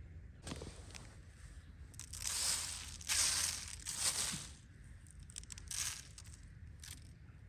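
Cardboard box rustling and scraping in several short noisy bursts, the loudest three in the middle.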